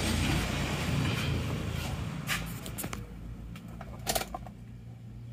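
Isuzu Panther Touring diesel engine, freshly rebuilt, running at about idle just after being started. It is louder for the first couple of seconds, then settles to a steady low hum, with a couple of sharp clunks like a car door about two and four seconds in.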